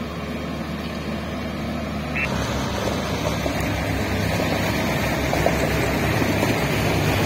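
Volvo road roller's diesel engine running steadily as it compacts a freshly laid bituminous macadam layer. About two seconds in, the sound becomes louder, with a rapid low pulsing under the engine drone.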